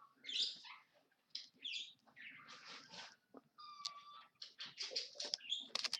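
Trading-card foil packs being handled, with faint rustling and light taps, a single short squeak a little before the middle, and the packs' foil wrappers starting to crinkle and tear near the end.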